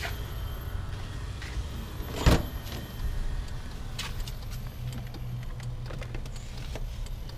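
Proton Iswara's driver door being opened: one loud clunk of the latch about two seconds in, then a few small clicks and handling sounds over a steady low hum.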